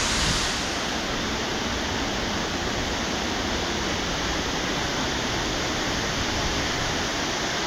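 Steady rush of a waterfall, the water sliding down an angled rock wall into a splash pool.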